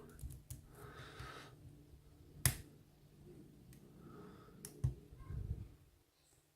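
Lock pick and tension wrench working the pins of a Kryptonite padlock: a few sharp metallic clicks, about two and a half seconds apart, with faint ticking and scraping of the pick between them.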